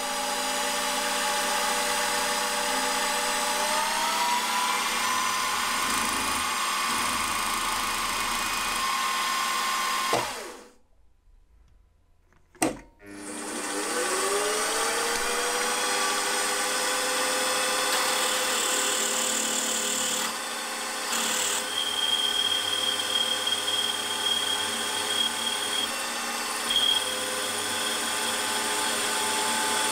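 Milling machine spindle running a drill into a cast iron piston for the wrist pin hole: first a centre drill, then a drill just under a quarter inch. The motor whine rises in pitch as the spindle speeds up, breaks off into near silence about ten seconds in, then spins up again and runs steadily while the drill cuts.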